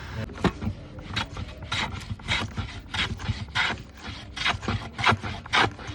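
Wood being worked by hand with a scraping or filing tool, in quick repeated strokes at about three a second.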